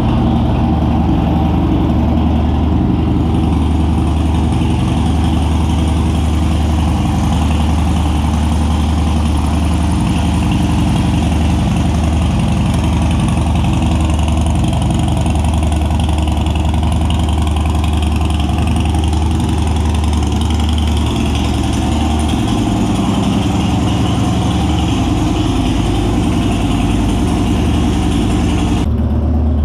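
Harley-Davidson Dyna's V-twin engine idling steadily through a Bassani Road Rage 3 two-into-one exhaust.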